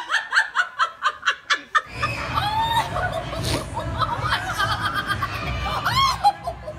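A person laughing in quick, evenly spaced bursts, about four or five a second, for the first two seconds, then more laughter mixed with other voices.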